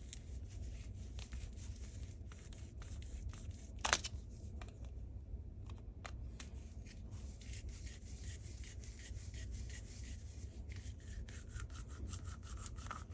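Hands handling and rubbing the vacuum's roller-head parts: steady rubbing with scattered small clicks and one sharper click about four seconds in.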